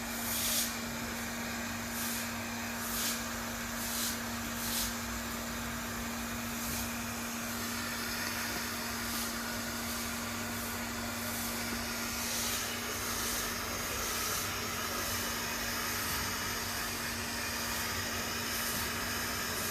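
Hair dryer running steadily, blowing a wet dog's coat dry, with a constant motor hum under the rush of air. A few short brushing or rustling noises in the first five seconds.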